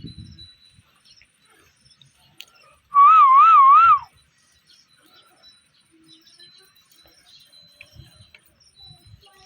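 A pet parrot gives one loud warbling whistle about three seconds in, lasting about a second, its pitch wavering up and down about four times. Otherwise there are only faint small knocks.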